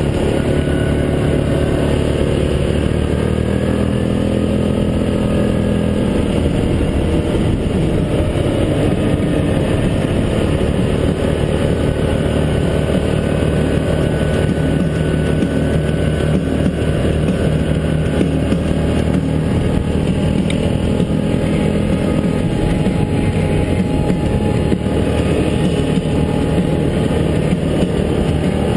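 Yamaha Grizzly 700 ATV's single-cylinder four-stroke engine running steadily under way, its pitch rising and falling a little a few seconds in with the throttle.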